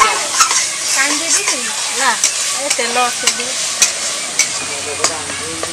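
Chicken curry sizzling as it fries in a kadai, with a spatula stirring and clicking against the pan in frequent sharp ticks.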